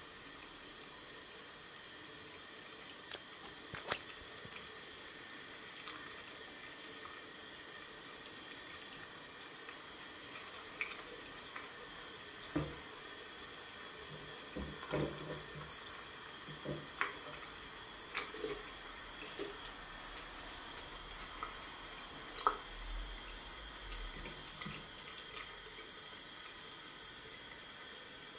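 A thin stream of water from a chrome mixer tap running steadily into a ceramic wash basin. Scattered light clicks and knocks, mostly in the middle stretch, come from a kitten pawing and mouthing the tap and stepping on the basin.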